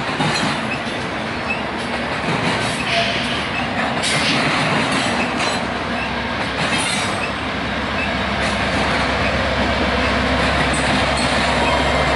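Union Pacific double-stack container train rolling past: a steady rumble and clatter of wheels and cars, with faint wheel squeal. From about eight seconds in, the low drone of the train's diesel locomotives grows as they come near.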